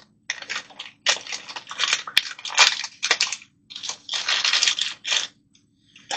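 Plastic packaging crinkling and rustling in several irregular bursts as a replacement dryer part is handled and unwrapped, with one sharp click partway through.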